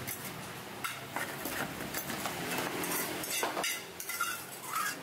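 Metal cookware clinking and knocking: a steel pot being handled on a portable gas stove, with a string of irregular sharp clinks and knocks.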